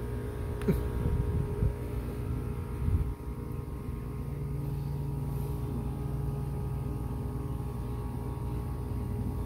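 Domestic cat purring in a steady low rumble while being stroked, with a few soft bumps in the first three seconds.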